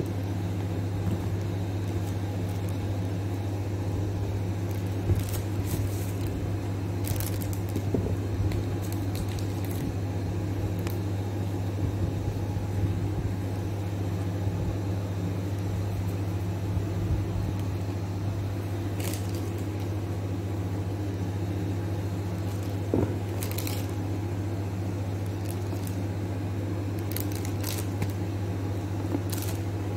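A steady low hum with scattered light clicks and rustles.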